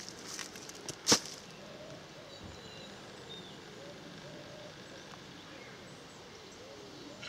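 Quiet outdoor ambience with faint distant bird chirps. A few clicks and one sharp knock about a second in.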